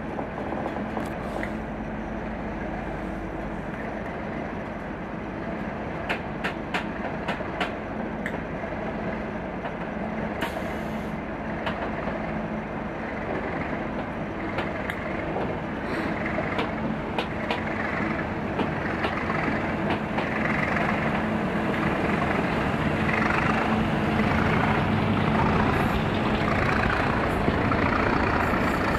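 A departing train: the English Electric Class 37 diesel locomotive's engine drones steadily under the sound of the moving coaches, with two runs of sharp clicks from the wheels. The sound grows gradually louder as the coaches pass close by.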